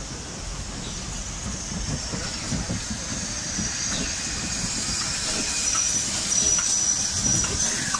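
USATC S160 steam locomotive passing close by, hissing steam over the low rumble of its wheels and motion. The hiss grows louder as the engine comes by, with a thin steady high hiss added from about six seconds in.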